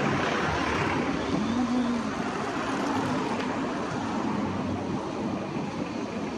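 Road traffic: cars and minibuses driving past close by, a steady mix of engine and tyre noise that eases off a little near the end.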